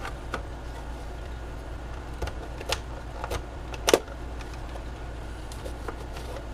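A few sharp plastic clicks and knocks from a Sharper Image CT800 portable radio being handled while its slide switch is reset, the loudest about four seconds in, over a faint steady low hum.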